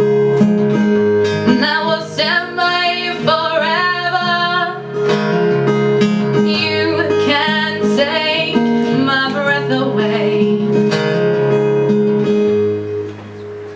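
Acoustic guitar strumming chords with a woman singing a slow melody over it; the song ends and the sound drops away near the end.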